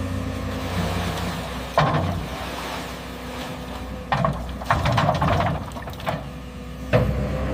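Heavy construction machine's diesel engine running steadily, with several sharp metallic clanks and knocks: one about two seconds in, a cluster around the middle, and another near the end.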